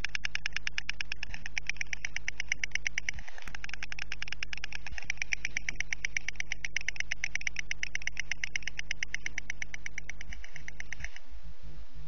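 White storks bill-clattering: a long, rapid, even rattle of the bill snapping, stopping about eleven seconds in. It is the storks' display used here to drive off intruding storks from the nest.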